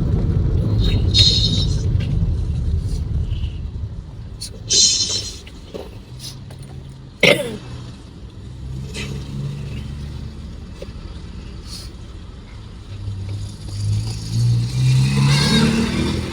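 Car engine and road rumble heard from inside the cabin, heavy at first and lighter through the middle. Near the end the engine pulls away, its pitch rising in steps. A few short sharp sounds come in between, one clear knock about seven seconds in.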